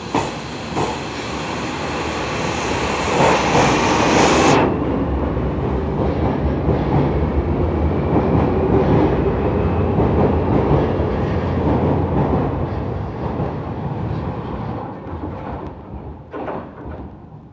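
JR Kyushu 305 series electric train pulling out of the station and accelerating past, its motor whine rising for the first few seconds. Then a steady rumble with wheels clattering over the rail joints, fading away near the end.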